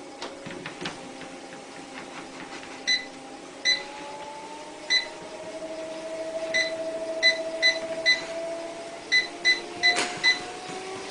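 Treadmill motor whining steadily, its pitch rising a couple of times as the belt speed is stepped up. About a dozen short electronic beeps from the console's buttons come in clusters over it.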